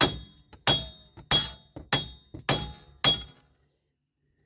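A short hammer striking the old wheel hub bearing assembly six times, about once every 0.6 seconds, to knock it loose from the steering knuckle. Each blow is a sharp metallic clank with a brief ring.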